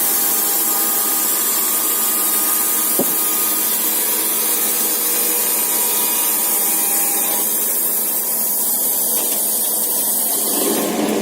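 Wood-Mizer LT40 Super hydraulic band sawmill running steadily, with a single sharp click about three seconds in; the sound changes just before the end.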